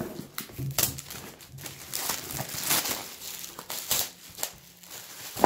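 Cardboard packaging sliding and rustling, then a clear plastic bag and a paper sheet crinkling as they are handled, with scattered small crackles. A sharp knock right at the end.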